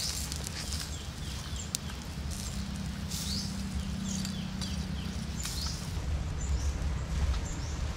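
Birds chirping over and over in short, falling calls, above a steady low rumble.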